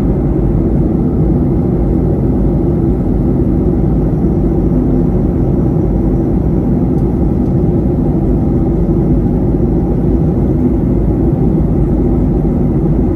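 Jet airliner cabin noise in flight: the steady, deep rush of engines and airflow heard from a window seat.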